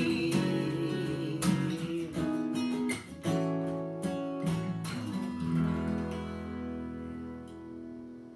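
Acoustic guitar strumming the closing chords of a song, with the last chord left to ring and slowly fade out.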